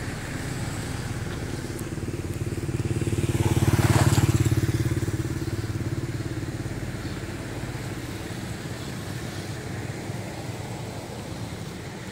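A motorbike engine passing by, growing louder to a peak about four seconds in and then slowly fading away.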